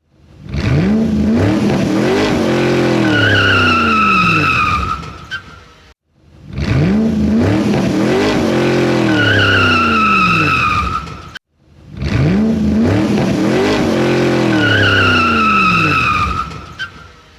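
Muscle car engine revving up and winding back down while its tyres squeal in a skid for about a second. The same skid plays three times with short gaps between.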